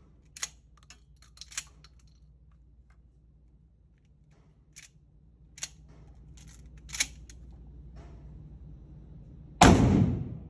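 A single 12-gauge shotgun slug shot near the end, loud and sharp with a short echoing tail. Before it comes a scatter of faint sharp clicks.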